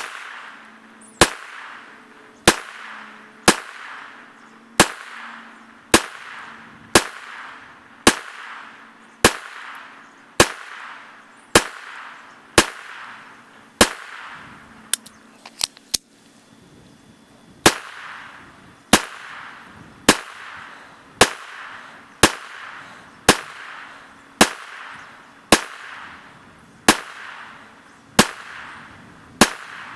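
Taurus TX22 .22 LR semi-automatic pistol firing single shots at a steady pace of about one a second, each sharp crack followed by a short echo. A brief pause near the middle holds a few light clicks before the shots resume.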